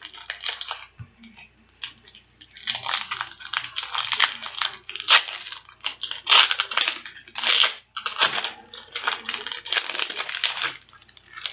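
A baseball card pack being torn open and its wrapper crinkled, in irregular bursts of tearing and crackling.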